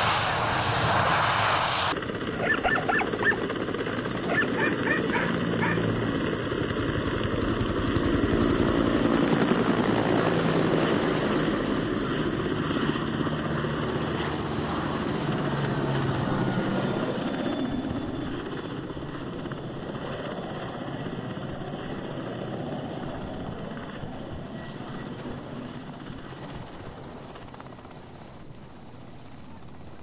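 Aircraft engine running, loud at first with a high whine that stops about two seconds in, then fading steadily as the aircraft moves away.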